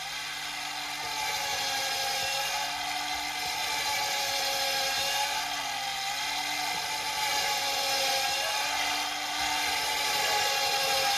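Steady mechanical whirring noise with a low hum that wavers slightly, cutting in suddenly.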